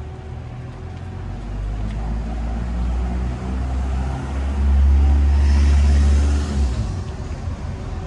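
A motor vehicle passing close by on the street: its engine rumble and tyre noise build to a peak about five seconds in, then fade over the next couple of seconds.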